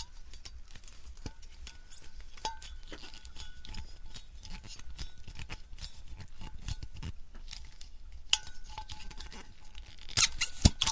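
Glass bottles clinking and knocking against each other, many small clicks with a brief ringing of glass, and a few louder knocks near the end.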